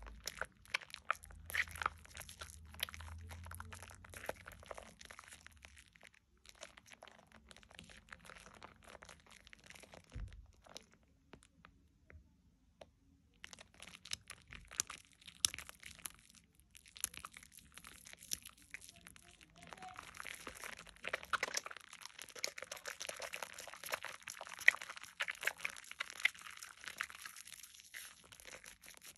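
Hands squeezing and kneading thick Dove shea butter soap lather: wet squishing with fine crackling of the foam, in spells, with a quieter stretch in the middle broken by one soft low thump.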